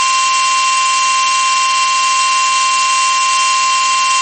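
Weather-radio warning alarm tone: one steady, unbroken high beep of about 1 kHz over a hiss of radio static, the alert that comes before a severe thunderstorm warning is read out.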